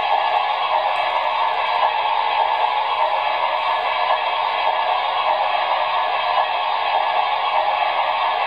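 Trix Challenger model steam locomotive running on test rollers under digital control, giving a steady, even hiss from its sound decoder's small speaker.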